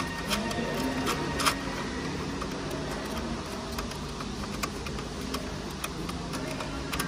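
Scattered light clicks and scrapes of plastic and metal as a gloved hand works a fastener loose from the plastic wheel-arch liner behind a car's rear light unit, over a steady low hum.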